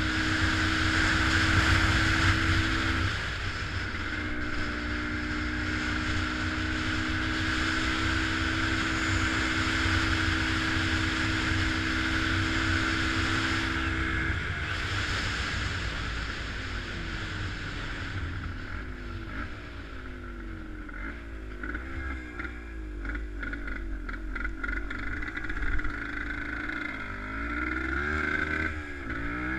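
Vehicle engine holding a steady speed for the first half, then revving up and down repeatedly.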